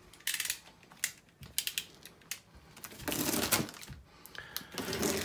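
Clear plastic wrapping crinkling and a cardboard box rustling as the packed parts are handled, with a run of sharp clicks and crackles at first and longer rustles about three seconds in and again near the end.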